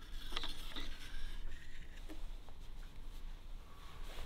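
A bamboo rod blank being handled and rubbed: a few light clicks of the cane in the first second, then soft rubbing of a cloth along the rod.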